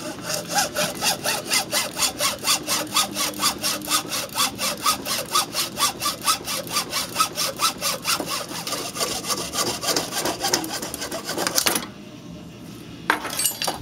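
Hacksaw cutting through a plastic Hyfax snowmobile slider clamped in a bench vise, cutting it to length, in quick, even back-and-forth strokes. The sawing stops about twelve seconds in.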